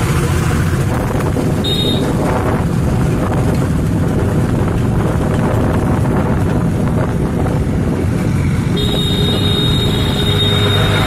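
Road traffic heard from a moving vehicle: a steady, loud rumble of engines and tyres with wind rushing over the microphone. A thin, high steady tone sounds briefly about two seconds in and again from about nine seconds in.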